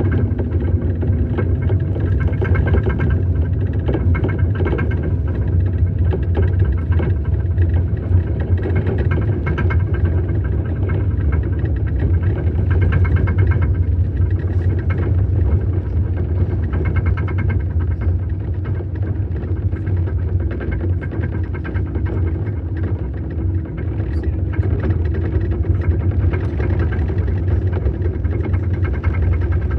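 Snow crawler (tracked snowcat) engine running steadily with a low rumble, heading down a slope.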